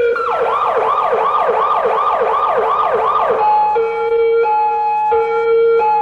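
Electronic emergency-vehicle siren in a fast up-and-down yelp, about two and a half sweeps a second, switching about three and a half seconds in to a two-tone hi-lo pattern that alternates a higher and a lower note, each held for under a second.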